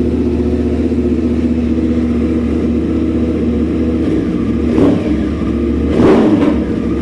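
Yamaha YZF-R1 crossplane inline-four with an SC-Project exhaust idling steadily, then given two quick throttle blips near the end, the second one louder.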